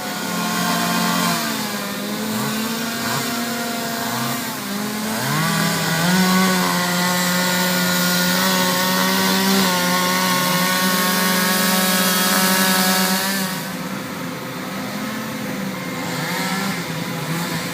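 Chainsaw engine revving in short bursts, then held at high speed for several seconds as in a cut before dropping back to a lower speed, with a brief rev again near the end.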